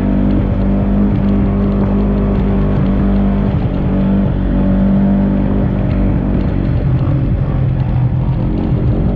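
Segway Villain side-by-side's engine running hard at high revs, its pitch dropping and climbing again a few times as the throttle comes off and back on.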